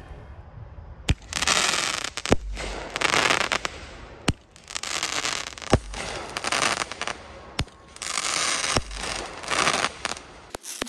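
Consumer firework cake firing shot after shot: six sharp launch thumps, one every one to two seconds, each followed by a spell of crackling bursts in the air.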